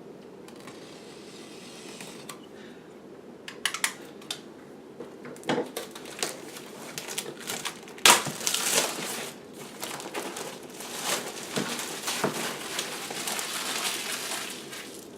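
A power supply's cardboard box and plastic wrapping being opened by hand. Scattered clicks and scrapes are followed by a sharp snap about eight seconds in, then steady crinkling of plastic.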